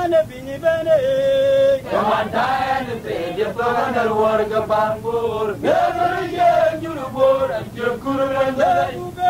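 Male voices chanting a song: a single lead voice holding notes, joined by several more voices about two seconds in.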